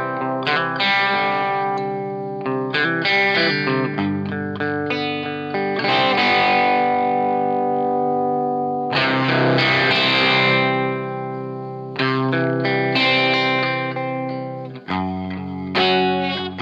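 Electric guitar played through a Dunlop FFM1 Silicon Fuzz Face Mini fuzz pedal into a Marshall Super Lead amp, giving a thick fuzzed tone. Chords and short riffs are struck and left to ring, with fresh chords about every three seconds.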